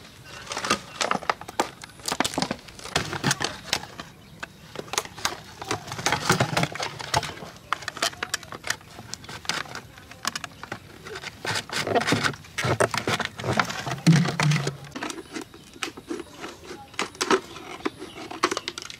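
Thin plastic soda bottle crackling and crinkling as it is cut with a utility knife and scissors and squeezed in the hands: a dense run of irregular sharp clicks and scrapes.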